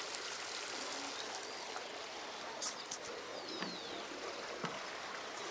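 Thermal spring water running and trickling steadily through stone channels between the bathing pools.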